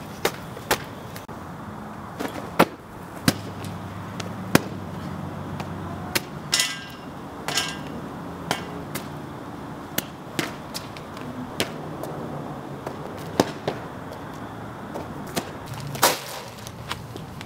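A cloth bag being swung and slammed repeatedly against hard surfaces such as a tree trunk: about a dozen sharp whacks at irregular intervals. Midway there are two short squeaky sounds.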